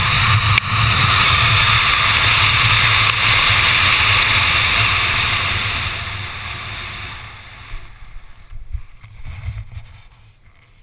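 Wind rushing loudly over a helmet-mounted GoPro microphone during a fast parachute canopy descent, dying away about six to eight seconds in as the canopy slows to land. A few soft bumps and rustles follow near the end.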